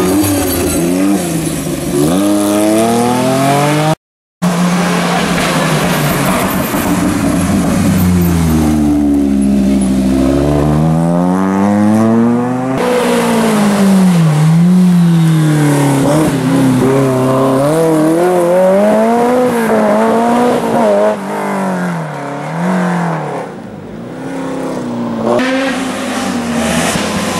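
Historic rally cars driven hard on a stage, engines revving up and dropping back over and over through gear changes. The sound cuts out briefly about four seconds in.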